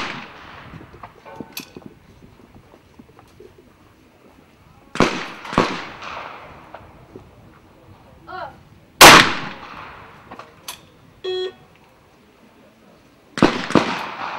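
Trap shotguns firing at clay targets, each shot sharp and echoing: a quick pair about half a second apart near five seconds in, typical of both barrels fired at one target, then a single shot with a shooter's shouted call just before it, and another quick pair near the end. A short beep sounds after the single shot.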